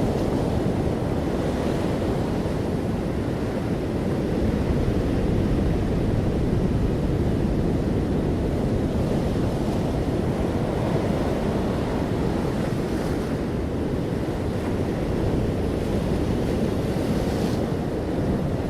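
Steady rushing noise of wind and sea, heaviest in the low range, with wind rumbling on the microphone and no distinct individual wave breaks.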